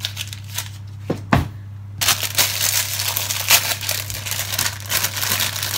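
Plastic herb packet crinkling and rustling as it is handled and opened, starting about two seconds in after a few light knocks.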